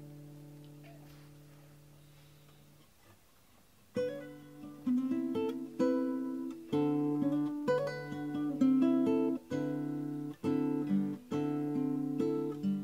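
Cutaway classical guitar: a chord rings out and fades away over about three seconds, then strummed chords start again about four seconds in, one struck roughly every second.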